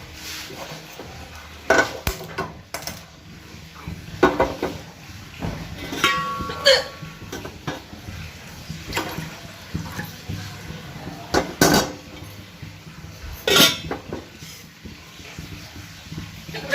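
Metal kitchen utensils and dishes clattering and clinking in a series of separate knocks. One clink about six seconds in rings on briefly.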